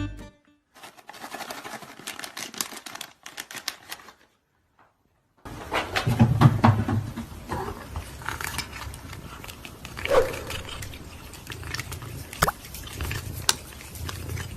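Sounds of a pet animal amid rustling and handling noise, in two separate clips split by about a second of silence.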